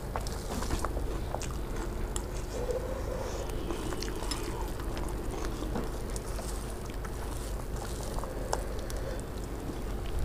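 A hand mixing puffed rice with spicy yellow-pea curry on a steel plate: scattered soft crackles and small clicks over a steady low hum.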